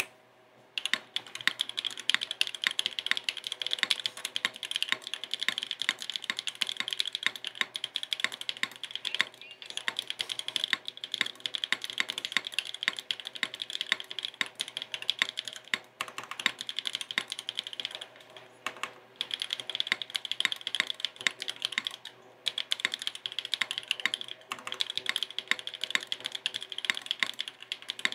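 Continuous fast typing on a Neo70 mechanical keyboard with stock Gateron Pro Yellow 3.0 linear switches on an aluminium plate and no foams. Dense keystroke clacks start about a second in, with a few brief pauses.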